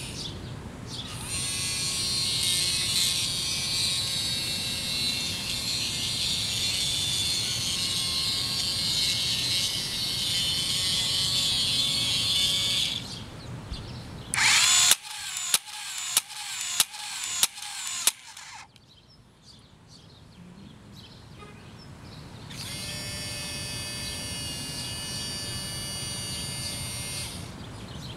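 Small geared DC motors of an OWI robot arm whining steadily as they swing a mounted Nerf blaster, for about twelve seconds. This is followed by a quick run of about six sharp clacks half a second apart, then another five-second stretch of motor whine.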